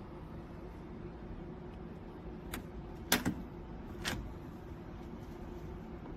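Door handle hardware being worked: a few sharp metallic clicks and knocks about a second apart, the loudest a double click about three seconds in, over a steady low hum.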